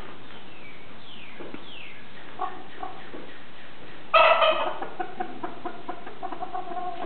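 Chickens clucking: a few faint high falling notes in the first two seconds, then about four seconds in a loud squawk followed by a run of quick short clucks.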